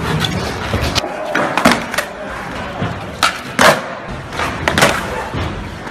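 A skateboard rolling, with several sharp clacks and slams of the board: the pops and landings of tricks.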